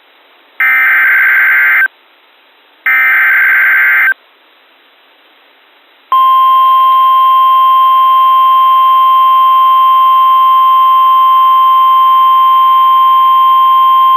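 Emergency Alert System SAME header on NOAA Weather Radio: two short buzzing data bursts about a second apart, then after a gap of about two seconds the steady 1050 Hz weather radio alert tone, which marks the start of a new severe thunderstorm warning.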